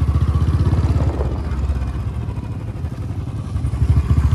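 Motorcycle engine running under way with a fast, even firing pulse. It eases off about halfway and picks up again near the end.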